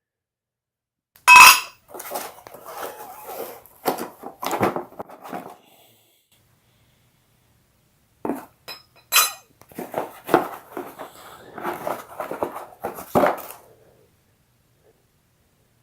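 Steel lower control arm brackets clanking and clinking as they are handled and unpacked: one sharp clank about a second in, then two spells of rattling metal clatter with a silent pause between them.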